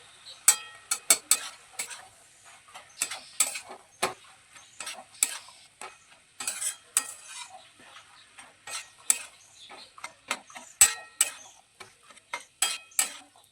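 A metal utensil stirring and scraping a thick banana-flower and potato curry in a cooking pan, with many irregular clinks against the metal over a faint sizzle.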